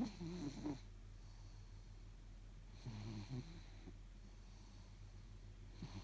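Snoring in slow, regular breaths: one snore at the start, another about three seconds in, and a third beginning near the end.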